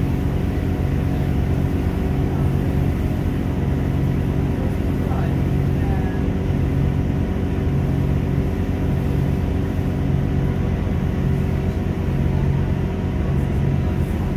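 Class 166 diesel multiple unit running, heard steadily: a diesel engine drone with a low hum that swells and fades in a regular rhythm, over steady running noise.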